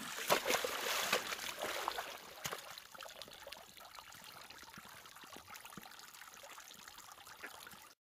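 A horse's hooves splashing and sloshing in a shallow puddle of meltwater, the splashes dying down about halfway through to a faint trickle of water.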